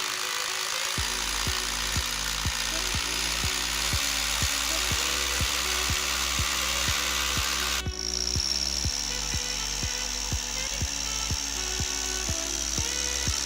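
Makita HR3011FC rotary hammer running, a steady harsh whir, over background music with a steady beat of about two beats a second. About eight seconds in, the tool sound cuts off abruptly and gives way to a steadier running sound with a high whine.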